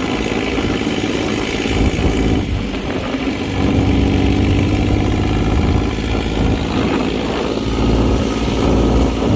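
Dune buggy engine running as the buggy drives along, its note shifting a little with the throttle, over road and wind noise.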